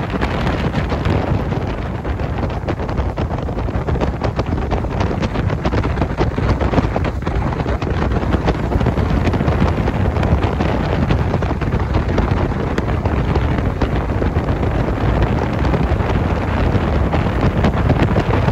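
Wind buffeting the microphone on a motorboat under way, over the steady rush of the boat's engine and water. The noise holds steady throughout, heaviest in the low end.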